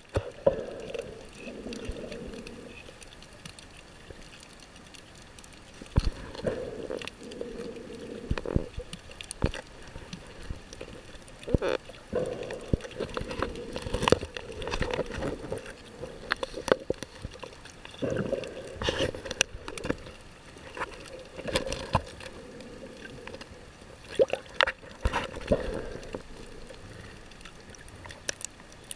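Muffled water sloshing and gurgling picked up through a compact camera's underwater housing while snorkeling, swelling and fading every few seconds, with scattered sharp clicks and knocks.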